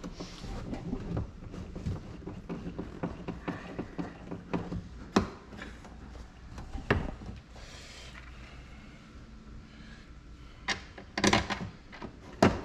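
A Phillips screwdriver and hands working at a plastic RV door window frame: scattered light clicks, taps and rubbing, with a cluster of sharper knocks near the end.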